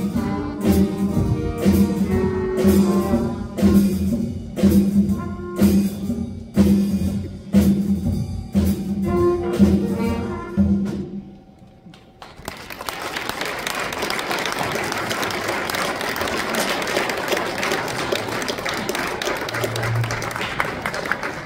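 Middle school jazz band of saxophones, trumpets and drum kit playing a tune with a steady drum beat, which ends about eleven seconds in; the audience then applauds steadily.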